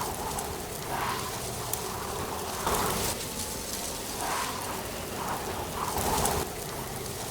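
Wind blowing through dry autumn leaves: a steady rustling hiss that swells every second or two.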